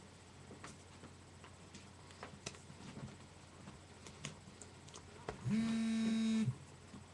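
Faint scattered taps and rustles from hands moving and touching while signing. About five seconds in, a loud steady buzzing tone of one pitch sounds for about a second and stops abruptly.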